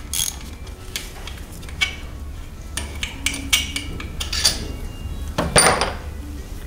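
Ratchet and socket clinking as they are handled and fitted among metal bolts, with scattered light clicks and one louder metallic clank about five and a half seconds in.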